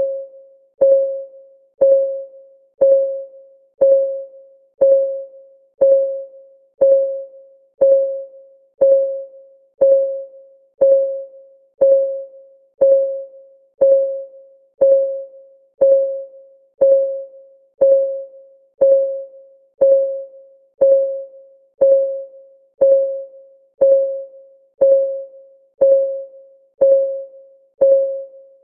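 Ticking-clock sound effect of a countdown timer: a steady tick about once a second, each tick a short, slightly pitched note that quickly fades.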